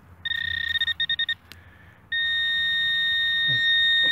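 Handheld metal-detecting pinpointer giving a steady high-pitched buzz that breaks into quick pulses for about half a second, stops briefly, then holds a continuous tone from about two seconds in: the probe is on a metal target in the dug hole.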